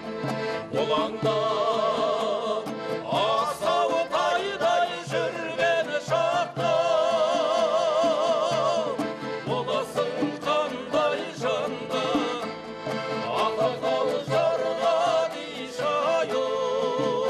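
Kazakh folk music: a singing voice with wide vibrato over an instrumental accompaniment with a steady, even beat.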